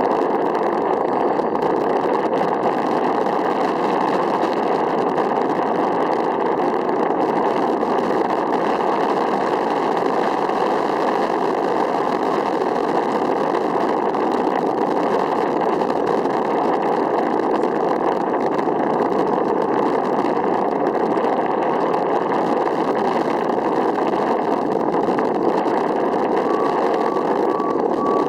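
A steady, unchanging engine-like drone, with a vehicle's reversing beeps starting near the end.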